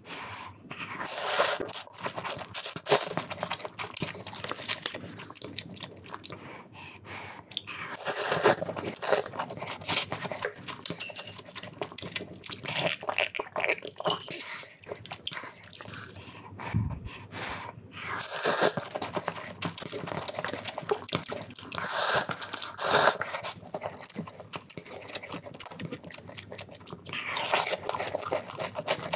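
Close-miked eating: spicy black instant noodles slurped in several loud bursts, with steady chewing and small wet mouth clicks between them.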